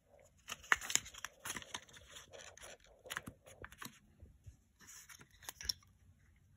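Cardboard packaging and a paper leaflet being handled by hand: irregular rustling and scraping with sharp clicks and ticks, stopping shortly before the end.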